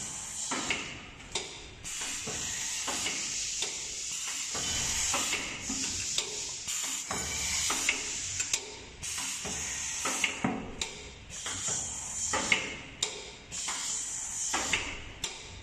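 Automatic steel-rule bending machine (TSD-830A) working 2pt cutting rule: repeated hissing of compressed air from its pneumatic cylinders, starting and stopping, with many sharp clicks and knocks from the feed, bending and cutting head.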